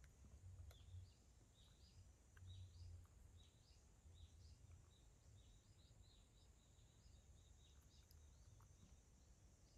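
Near silence: faint room tone with soft, rapid high chirps of small birds.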